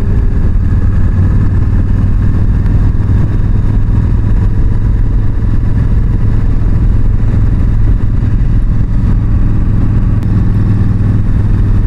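Yamaha V-Star 1300's V-twin engine running steadily as the motorcycle cruises at road speed, with a constant low rumble and no change in pace.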